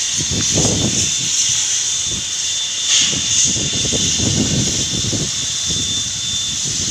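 NSW 59 class steam locomotive 5917 letting off steam: a loud, steady hiss with a faint whistling tone in it, over an uneven low rumble.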